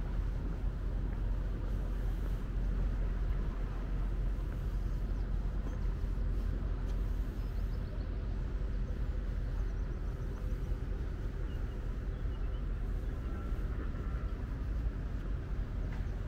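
Steady low rumble of distant engines and traffic around a harbour, with a faint constant machine hum.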